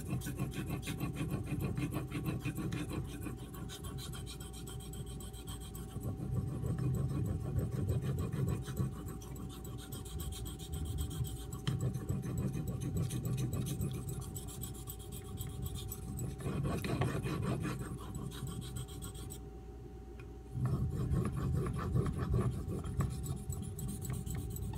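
A CPM 3V steel knife blade being stroked on a Shapton Pro whetstone: a continuous run of gritty scraping strokes that swell and fade, with a brief lull about twenty seconds in.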